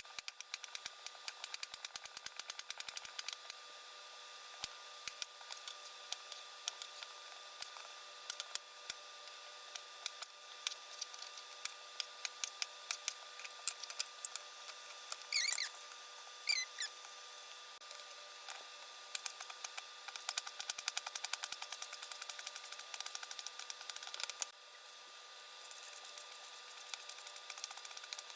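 Kitchen food preparation: runs of quick sharp clicks and taps from utensils working on the vegetables, coming in bursts with short pauses, and two brief squeaks about halfway through.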